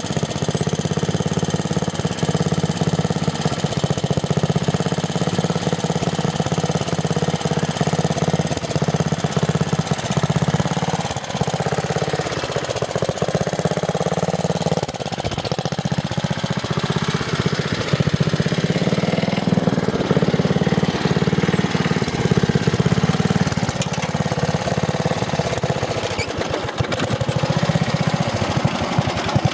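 Off-road vehicle's engine running under load, its pitch rising and falling as it revs, with a rough, fast-pulsing note.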